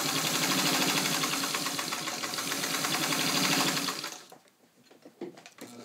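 Electric-driven Singer 66 sewing machine stitching steadily through four layers of garment leather, two of them extra thick, with a fast even rhythm of needle strokes. It stops about four seconds in, leaving a near-silent pause with a few faint clicks.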